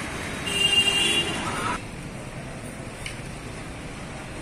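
Steady road traffic noise, with a vehicle horn sounding for about a second near the start.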